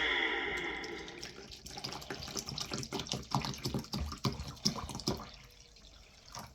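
Worx WX031 brushless wet and dry vacuum's motor winding down, its whine falling and fading over the first second. Then water trickling and sloshing, with small irregular knocks.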